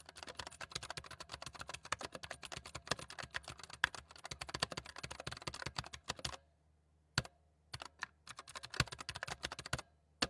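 Zifriend ZA646 60% mechanical keyboard being typed on: a fast, continuous run of keystrokes for about six seconds, a short pause broken by a single keystroke, then another burst of typing.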